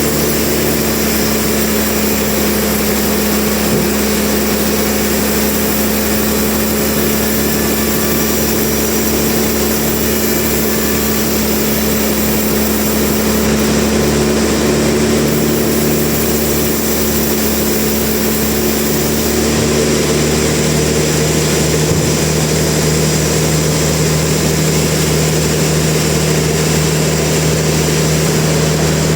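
Sawmill machinery running steadily with a constant engine-like hum. The pitch of the hum shifts slightly about twenty seconds in.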